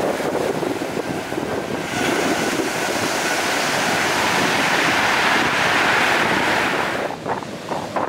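Storm surf breaking and washing up a pebble beach: a steady rushing wash that swells from about two seconds in, with wind buffeting the microphone. Near the end it turns choppier and gustier.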